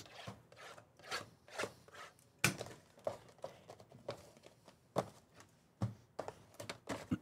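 Handling of a cardboard hobby box and its plastic-wrapped mini-boxes: rustling and short light knocks as the mini-boxes are lifted out and stacked on a table, the sharpest knocks about two and a half and five seconds in.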